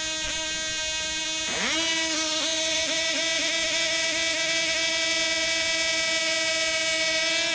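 Small high-revving model aircraft engine, the 2.5 cc diesel of an F2C team-racing model, running on the ground during warm-up at a steady high pitch. About one and a half seconds in its note drops sharply and climbs straight back, after which it runs steady and a little louder.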